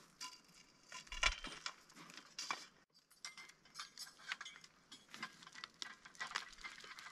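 Faint, irregular metallic clinks and rattles, light taps of small metal pieces knocking together.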